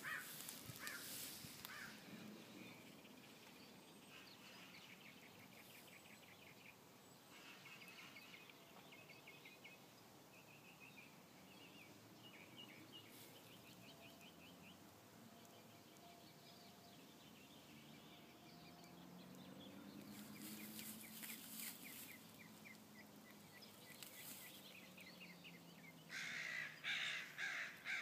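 Faint bird calls: a few harsh calls in bursts, loudest near the end, with quieter quick chattering between.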